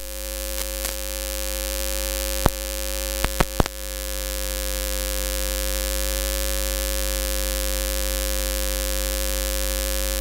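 Steady electrical mains hum and hiss from the microphone and sound system, with a few sharp clicks in the first four seconds.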